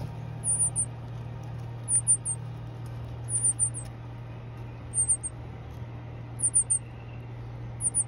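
Northern cardinal nestling begging: thin, very high cheeps in quick runs of three or four, repeated about every second and a half over a steady low hum.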